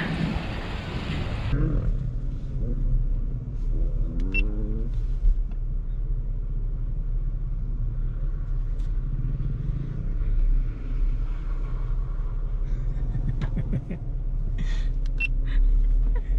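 Jeep Wrangler engine idling with a steady low rumble, heard through a camera mounted on its hood. It opens with about a second and a half of wind noise on the microphone, and a few light knocks come near the end.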